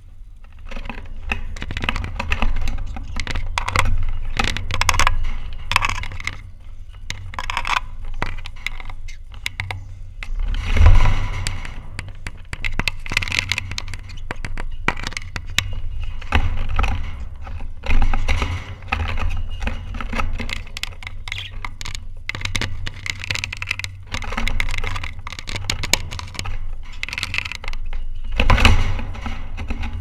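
Budgerigars at close range, their beaks and claws making a steady run of clicks, taps and scrapes against the camera and the cage wire. Three heavier bumps on the camera come about a third of the way in, just past the middle, and near the end.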